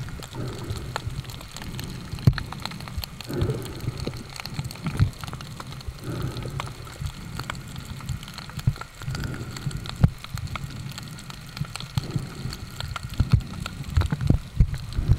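Underwater sound picked up by a camera held below the surface: a low rumble of moving water with a constant scatter of small crackling clicks.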